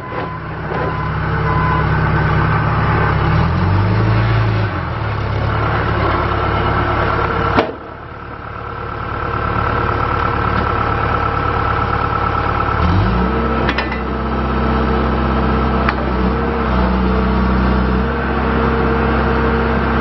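2004 John Deere 310G backhoe loader's four-cylinder diesel engine running as the machine manoeuvres, with a reverse alarm beeping briefly at the start. A sharp click comes about eight seconds in, followed by a short dip in level. About thirteen seconds in the engine revs up and holds at the higher speed.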